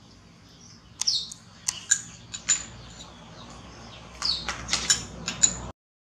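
Short, high-pitched chirps and squeaks come in two clusters, one about a second in and another about four seconds in. The sound cuts off abruptly near the end.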